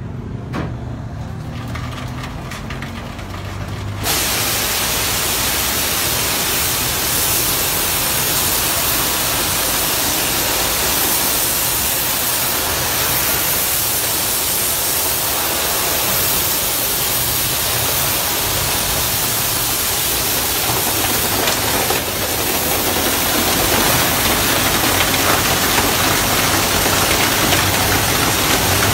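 Automatic motorbike wash machine: a low machine hum, then about four seconds in the water jets switch on with a sudden loud, steady hiss of spray. A little after twenty seconds it gets louder as the rotating brushes start scrubbing the scooter under the spray.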